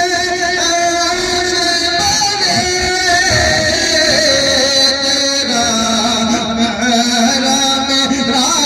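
A man's voice singing long, held notes that slide from one pitch to the next in a drawn-out, wordless melodic passage of a naat.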